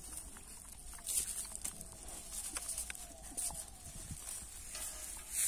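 Pit bull puppies suckling at their mother's teats: rapid wet smacking and clicking, with a run of small falling squeaks around the middle.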